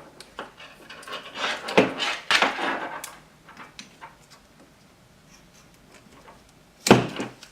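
Scissors cutting double-sided tape, with small handling scrapes and clacks at a workbench in the first three seconds, then a louder clack near the end.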